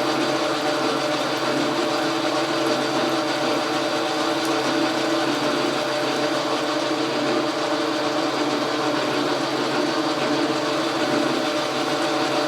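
Logan metal lathe running steadily while taking a cut under power feed: an even hum of motor and gearing. A little vibration comes through the lead screw, which turns in a plain hole in a cast-iron block with no bushing.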